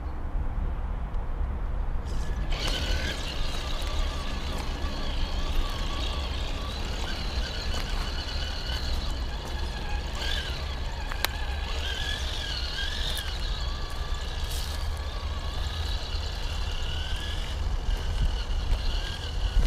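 Traxxas TRX-4 Sport RC crawler's stock brushed motor and gearbox whining, starting about two and a half seconds in and rising and falling in pitch as the throttle changes, with a sharp click about eleven seconds in, over a steady low rumble.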